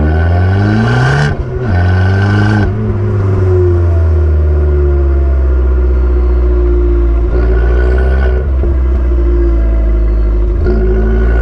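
Abarth 595 Turismo's stock 1.4-litre turbocharged four-cylinder engine pulling through the revs, its pitch rising, with a short break at a gear change about a second and a half in and another a little later, then running at steadier revs with small rises and dips.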